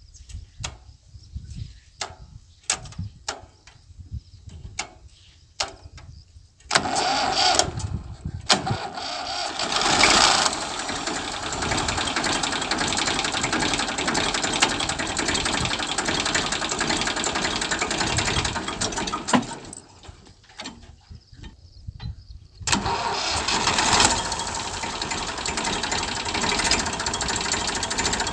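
Old Massey Ferguson tractor engine being started. After a few faint clicks it catches about a quarter of the way in and runs loud and steady, cuts out for a few seconds about two-thirds of the way through, then is started again and runs on.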